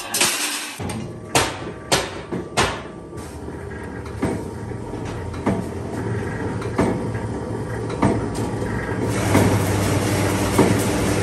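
Guillotine plate shear running with a steady motor hum, with sharp metallic clanks as a steel sheet is pushed across its bed. The clanks come thick in the first few seconds, then thin out to single knocks a second or more apart.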